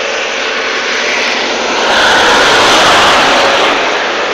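Aircraft flying over: a loud, even engine roar that swells to its peak about two to three and a half seconds in, then begins to fade.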